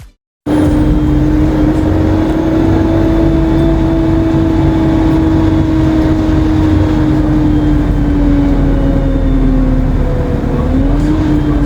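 ADL Enviro 200 MMC bus running with a loud, steady turbo whine over the low drone of its diesel engine; the whine sinks slowly in pitch, then rises and wavers again near the end.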